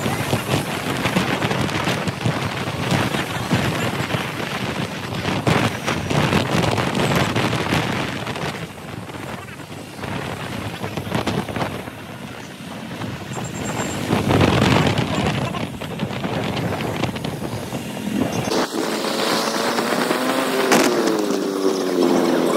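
A motorcycle on the move: engine noise and wind rushing and buffeting over the microphone, rising and falling in strength. Near the end the rumble and wind drop away and a voice takes over.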